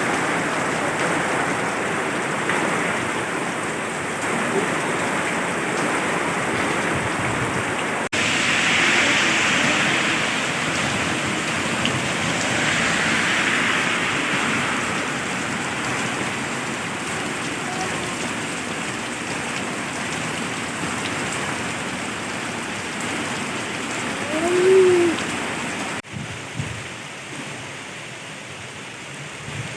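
Heavy rain falling steadily. The rain sound changes abruptly twice and is quieter near the end. Just before that, a short rising-and-falling tone is the loudest moment.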